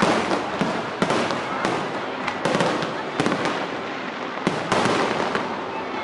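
Fireworks display: aerial shells bursting with sharp bangs every half second to a second or so, over a continuous crackling of burning stars.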